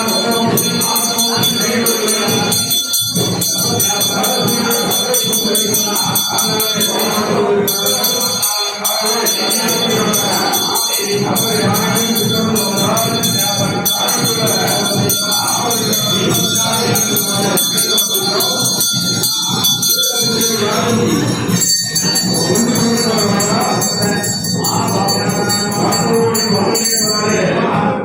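Music with jingling bells and many voices singing or chanting.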